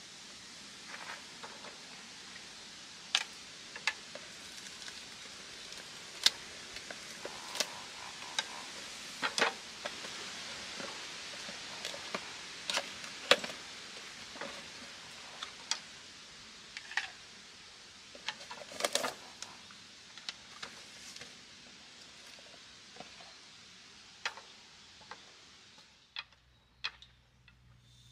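Unboxing and handling a SOTO ST-310 single gas burner: irregular sharp clicks, taps and rustles of the cardboard box and packaging being opened and the stove being handled on a wooden table. Underneath is a steady background hiss that fades near the end.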